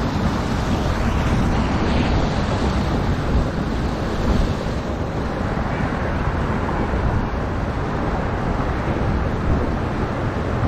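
Water pouring over a small lake spillway into a pool, a steady rushing, with wind buffeting the microphone.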